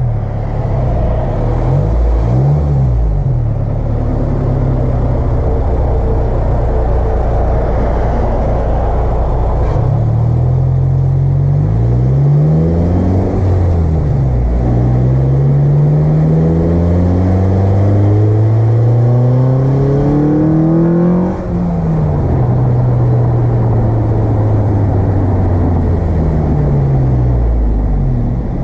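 Car engine breathing through an Acuity cold air intake, accelerating under load. The revs blip up and down early on, then climb in long pulls with a gear change between them; after a sudden drop about three-quarters of the way through, they ease down slowly.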